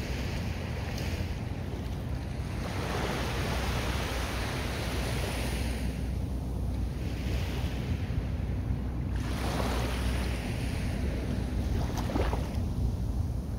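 Small sea waves washing up a sandy beach in about three surges a few seconds apart, over a steady low rumble of wind on the microphone.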